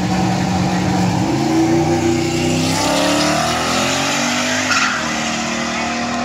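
Two drag-racing street cars launching from the start line. The engines are held at high revs, then about a second in they take off and rise in pitch as they accelerate away down the track.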